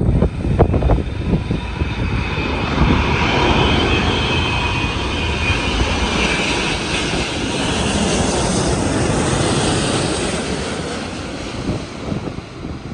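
Jet airliner passing low overhead on final approach. Its engine noise swells into a loud rush with a whine through the middle and fades near the end. Wind buffets the microphone at the start.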